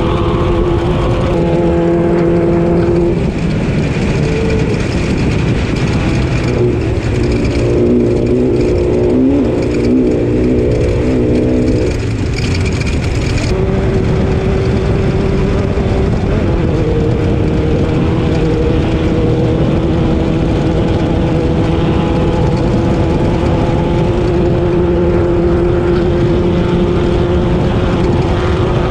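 Class 12 off-road race car's engine running under load over a constant rumble. The engine note changes pitch several times in the middle before settling back to a steady note.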